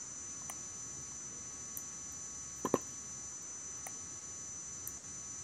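Low steady electronic hum and high whine of the call recording's background, with one brief click about halfway through.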